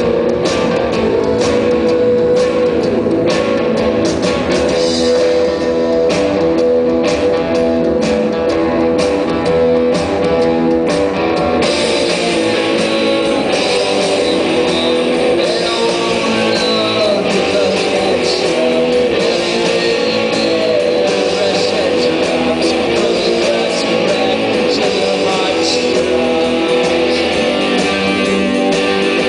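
Live rock band playing: electric guitars and drums, loud and steady, heard from the audience. Regular drum hits stand out for the first twelve seconds or so, then the sound thickens into a denser wash of guitar.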